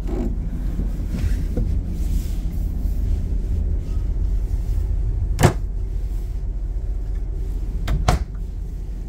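Wooden cabinet drawer pushed shut with a single knock about five seconds in, then a cabinet door knob and latch clicking twice near the end, over a steady low rumble.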